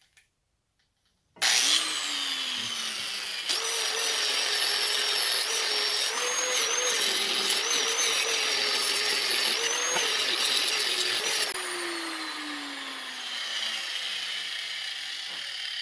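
Angle grinder switched on about a second and a half in, then grinding the protruding end of a wooden axe handle and wedge flush with the axe head, its whine wavering in pitch under load. Near the end it is switched off and winds down with a long falling whine.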